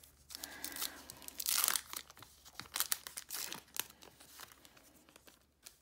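Foil-lined trading card pack wrapper being torn open and pulled apart by hand, crinkling. The loudest tearing comes about one and a half seconds in, with another stretch of crinkling a couple of seconds later before it dies away.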